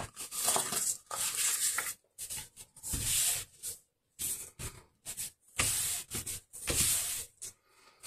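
Cardstock pieces of a handmade waterfall card being handled and slid over a paper-covered craft table: a string of dry rustling, scraping sweeps, each up to about a second long, with short pauses between them.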